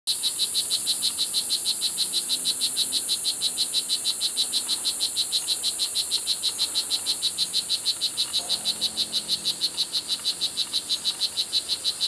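Strawberry poison dart frog (blue jeans morph) calling: a long, even run of quick high chirps, about five a second. A steady high insect hiss sounds behind it.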